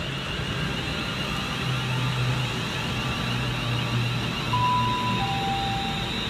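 Train standing at a station platform: a steady low engine hum under a rapidly warbling high electronic tone, with two short beeps near the end, the second lower than the first.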